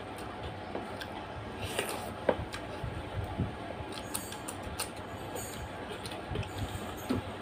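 Close-up eating sounds: fingers squishing and mixing rice into curry on a metal plate, then mouth and chewing sounds after a handful is eaten, with scattered small wet clicks throughout.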